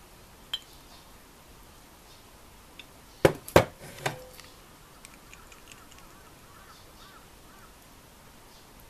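Glass knocking and clinking: a light clink, then three sharp knocks in quick succession about three to four seconds in, the last one ringing briefly. They come from a glass bottle and a glass of ice being handled and set down on a table after a drink is poured.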